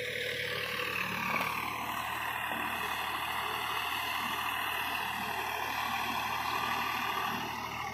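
Steady motor drone, a low hum under a whine that slowly wavers in pitch.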